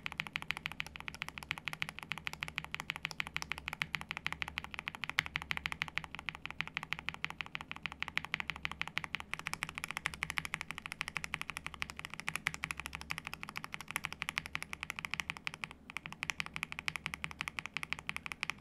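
One linear mechanical keyboard switch being pressed and released rapidly over and over, making a fast, even stream of plastic clacks. The switch is first a Tecsee Carrot with a long-pole stem; from about halfway it is C3 Tangerines, unlubed and then lubed near the end.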